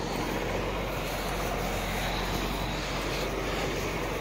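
Tractor engine running steadily, a constant noise that comes in suddenly at the start.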